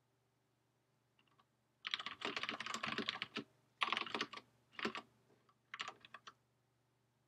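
Typing on a computer keyboard: rapid runs of keystrokes in several short bursts, starting about two seconds in.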